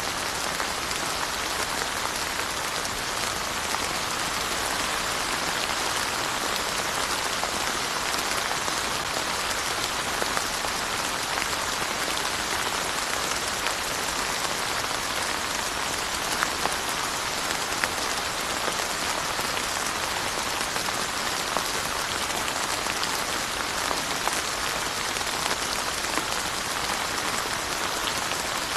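Steady rain falling and pattering on surfaces, with scattered individual drops ticking through the even hiss.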